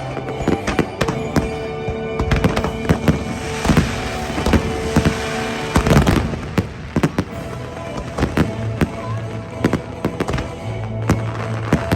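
Aerial fireworks banging repeatedly over the show's music, with a dense patch of crackling around the middle.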